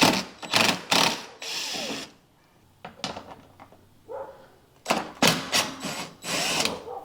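A power driver with a socket spinning out two 10 mm bolts, in two short runs a few seconds apart, with clicks and clanks of the tool and the fasteners.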